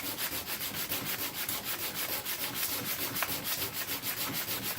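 Harmonica mouthpiece slider being hand-sanded on sandpaper in quick, even back-and-forth strokes, about five or six a second. It is the hand shaping of the slider's underside, still cutting at the sides and not yet at the part that seals on the mouthpiece.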